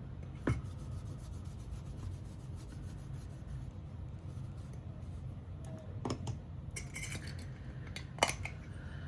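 Light clicks and clinks of small glass nail polish bottles and tools being picked up and set down: a handful of separate taps, the loudest about eight seconds in, over a steady low hum.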